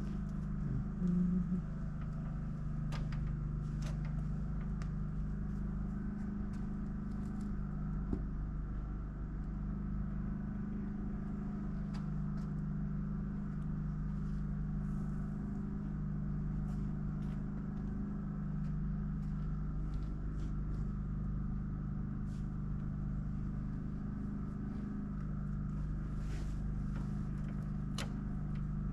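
Steady engine drone with a low rumble, and scattered small clicks of hand work over it.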